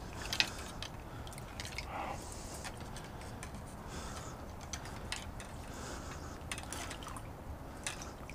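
Faint water trickling and dripping around mangrove roots, with scattered small clicks and knocks over a low steady rumble.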